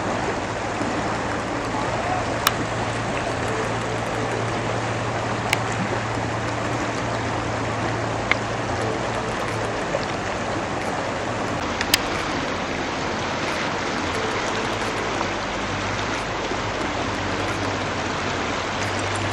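A fast, swollen, muddy river rushing over stones: a steady, even noise of running water. A few sharp clicks stand out over it.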